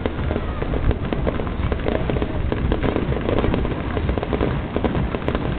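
Fireworks display going off: a continuous, rapid crackling and popping of bursting shells, with no single big bang standing out.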